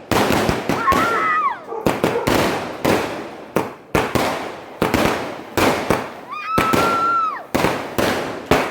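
Diwali firecrackers going off in a rapid string of sharp bangs, about two a second, each dying away in an echoing tail. Twice a drawn-out higher tone holds and then falls away over the bangs.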